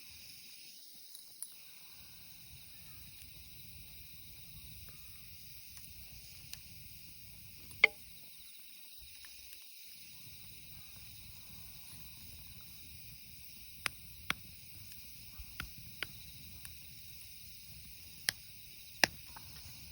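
Wood campfire crackling: scattered sharp pops and snaps over a steady faint hiss. The loudest pop comes about eight seconds in, with several more in the second half.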